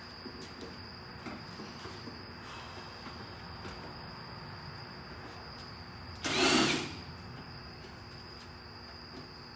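Crickets give a steady high-pitched chirring. Light clicks and taps come from hands working at the truck's firewall wiring. About six seconds in, a brief loud noisy burst lasting under a second is the loudest sound.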